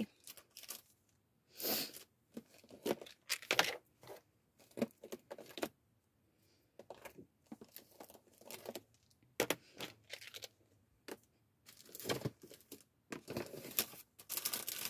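Craft supplies being handled: brief paper rustles, crinkles and small clinks coming in irregular bursts, with a pause of about a second near the middle.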